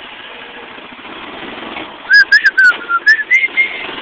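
A steady noisy background, then from about two seconds in a string of short whistled notes that rise and fall, with sharp clicks among them.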